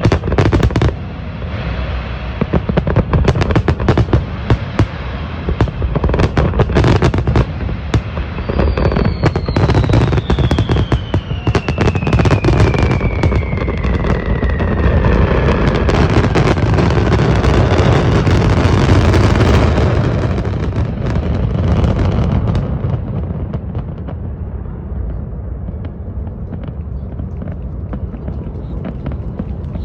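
Fireworks display: rapid bangs and crackles of bursting shells, with a long whistle falling in pitch over several seconds in the middle. The bursts build to their loudest just before two-thirds of the way through, then thin out into a steadier rumble.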